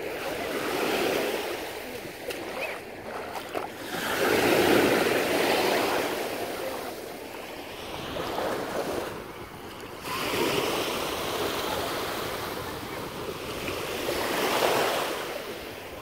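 Small sea waves washing up and drawing back over a shingle beach, swelling and fading every few seconds.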